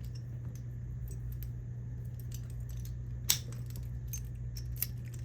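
Small metallic clicks and taps of a padlock and its parts being handled during reassembly, with one sharper click about three seconds in and another near the end, over a steady low hum.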